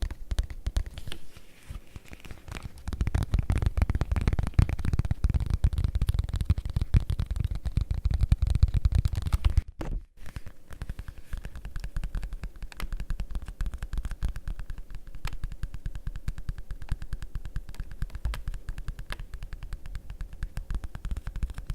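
Fast, dense tapping of fingertips on leather. The taps grow louder about three seconds in, break off for a moment near the middle, then carry on more evenly and a little quieter.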